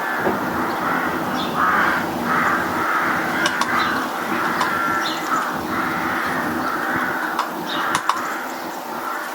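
A crow cawing in a run of about eight harsh calls, with short high chips from small birds between them.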